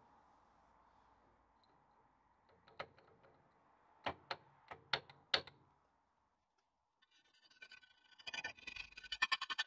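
A handful of sharp metal clicks and knocks as a stub axle is worked onto a Land Rover swivel housing. Then, after a short pause, a file rasps in quick, even strokes, scraping excess paint off the painted brake backplate, getting louder near the end.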